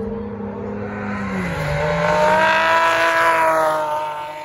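Historic touring car engine at full throttle passing along the circuit, its note climbing in pitch as it accelerates through the gears. Loudest about halfway through, then falling away sharply near the end.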